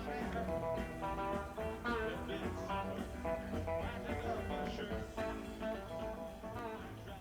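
Background music led by guitar, easing down in level near the end.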